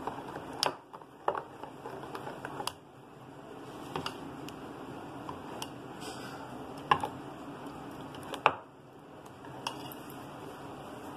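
A spoon stirring thick dosa batter in a glass bowl, with about seven irregular sharp clinks of the spoon against the glass, the loudest two near the seven- and eight-and-a-half-second marks.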